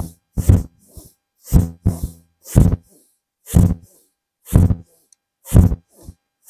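A woman doing bhastrika (bellows) breathing: forceful exhales about once a second, each with a loud low rush. Quicker, fainter hissing inhales fall between them.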